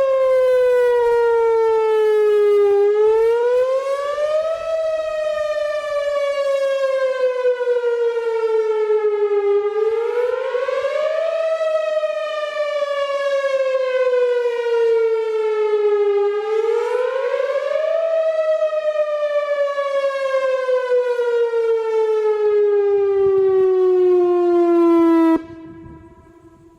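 Whelen Vortex electronic outdoor warning siren sounding a wail during a test: the tone falls slowly in pitch, then sweeps back up quickly, about every six and a half seconds. Near the end it cuts off suddenly, leaving a short fading echo.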